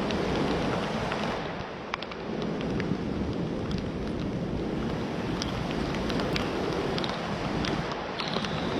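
Heavy storm rain falling steadily, with many scattered sharp ticks of drops striking close by, and a low rumble of wind.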